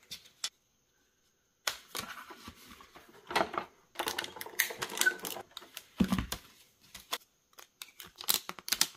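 Clicks, taps and rustles of plastic embossing plates and a plastic embossing folder with paper inside being handled and fed into a hand-cranked embossing machine, starting after a short pause, with one heavier knock about six seconds in.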